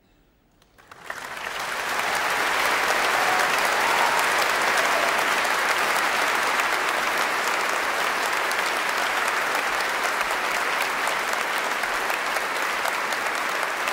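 Audience applause breaking out about a second in after a hush, swelling quickly and then holding steady.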